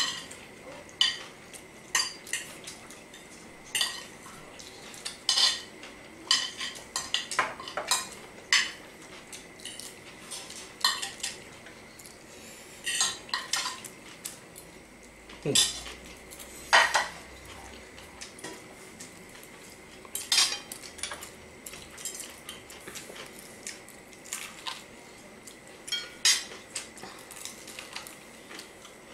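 Metal forks clinking and scraping on ceramic dinner plates while people eat noodles, in quick irregular clinks.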